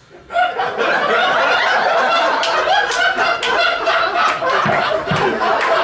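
Audience laughing, with scattered clapping joining in about two and a half seconds in.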